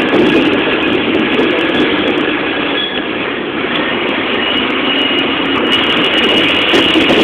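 Steady running noise of a moving road vehicle, engine and road noise together, with a faint steady whine over it.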